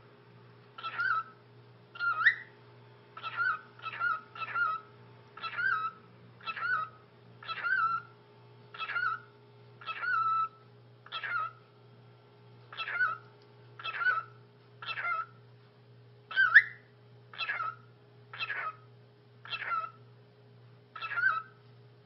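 Cockatiel repeating a mimicked "ni hao" (Mandarin for hello) over and over, about one short call a second.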